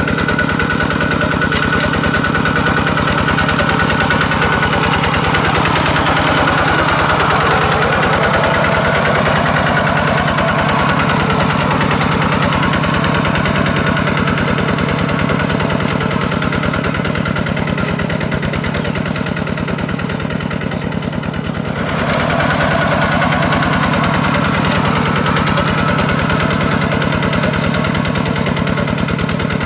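Single-cylinder diesel engine of a Kubota RT140 two-wheel walking tractor running steadily under load while it pulls a plough through wet mud: a fast, even chugging.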